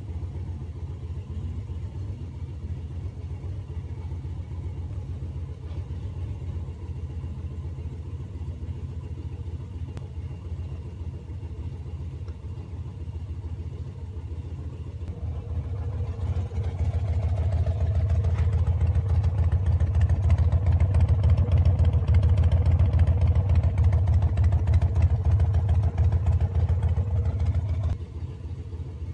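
Harley-Davidson V-twin engine on a Dynojet dyno, running steadily at low revs, then revving up under load about halfway through in a dyno pull. It runs loud and hard for about twelve seconds, then drops off suddenly near the end as the throttle is shut.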